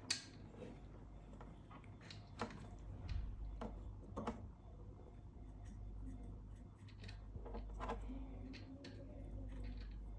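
Clicks and light knocks of small hard parts being handled while a medical ventilator is worked on: a sharp click at the very start, then a few more spread through, over a steady low hum.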